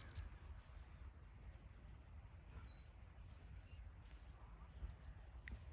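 Near silence: a low steady rumble, such as wind on the microphone, with a few faint, short bird chirps.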